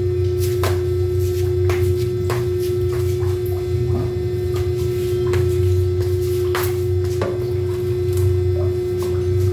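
A steady, deep machine hum with one constant mid-pitched tone, broken by sharp clicks and ticks every second or so.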